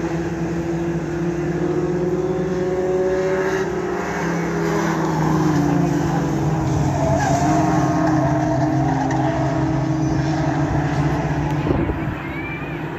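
Several racing pickup trucks' engines running at once, their pitches shifting as they accelerate and lift through the corners. A short knock comes near the end.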